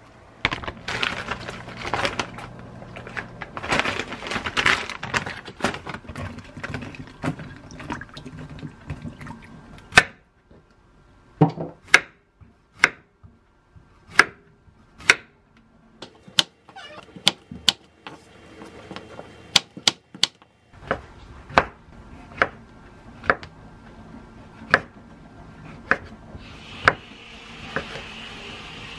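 Close chewing of a leafy salad for the first several seconds. Then a ceramic kitchen knife slices zucchini and shiitake mushrooms, each cut ending in a sharp tap on the wooden cutting board, about one a second and unevenly spaced. A soft hiss comes in near the end.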